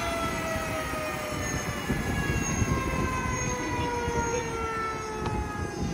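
Rolls-Royce RR300 turbine engine of a Robinson R66 winding down after being turned at 8 to 10% N1 for a distilled-water compressor rinse: a whine of several tones falling slowly and steadily in pitch over a low rumble.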